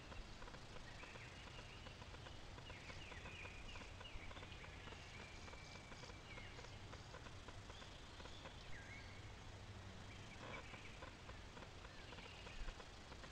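Faint outdoor birdsong: scattered short chirps and a few whistled notes and slides, over a steady hiss, with a couple of soft knocks.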